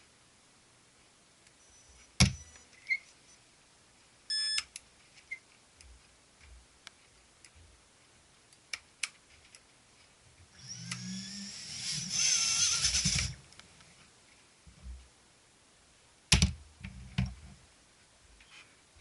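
Tiny whoop quadcopter, a NewBeeDrone Hummingbird RS: a few handling clicks and a short electronic beep, then its motors spin up with a high whine for about three seconds near the middle before stopping. Two of its four motors fail to spin.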